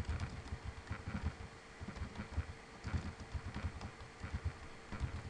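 Typing on a computer keyboard: a quick, irregular run of keystrokes, several a second, with dull low knocks, over a faint steady hum.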